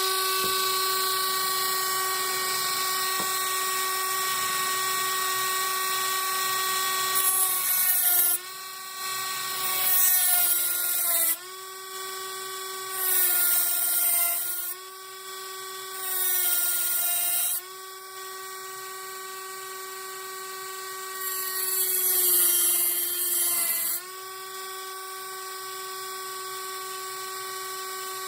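Dremel rotary tool running at a steady high whine, grinding teeth into a steel screwdriver blade; about five times the tool bites in, with a rising hiss while the motor pitch dips slightly under load.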